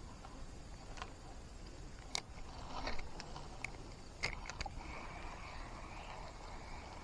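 A handful of sharp clicks and knocks, the loudest a little after two seconds and again after four, over a steady outdoor drone of insects.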